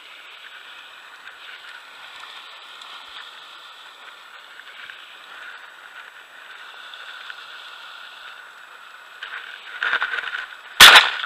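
A single loud, sharp shotgun shot near the end, fired at a dove. Shortly before it there is a brief rustle, over a steady faint outdoor hiss.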